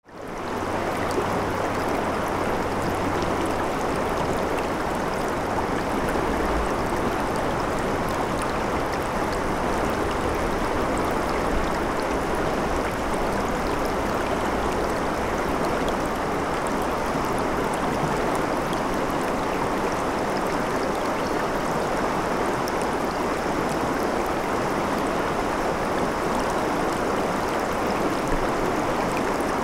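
Shallow river running fast over rocks: a steady rush of water that fades in over the first second and then holds even.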